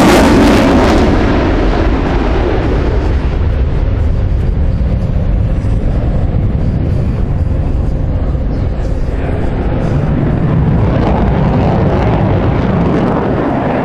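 Eurofighter Typhoon's twin turbofan jet engines passing loudly. The high hiss fades in the first second or so, leaving a deep, steady rumble as the jet moves away.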